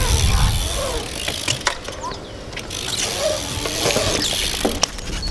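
BMX bike coasting around a concrete bowl: tyres rolling on the concrete and the rear hub's freewheel ticking, with a few sharp clicks and a low rumble underneath.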